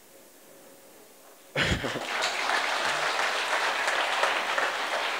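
Audience applause in a large hall, breaking out suddenly about a second and a half in after a quiet pause and carrying on steadily.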